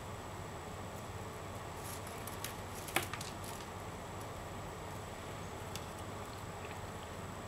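Plastic lanyard (scoubidou) strands being handled and worked by hand: a few faint rustles and small clicks, the sharpest about three seconds in, over a steady background hiss.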